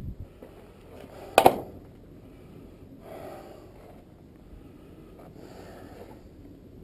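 One sharp metallic clank about a second and a half in, then a man breathing hard in a few heavy breaths.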